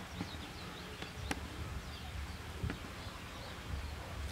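Outdoor rural ambience: faint bird chirps over a low rumble, with a sharp click about a second in and another a little before three seconds.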